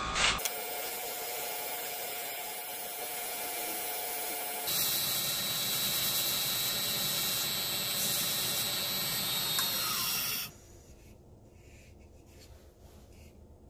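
Sandpaper rubbing against a cherry-wood goblet spinning on a wood lathe: a steady hiss over the lathe's running. It grows louder a little under halfway through and stops abruptly about ten seconds in.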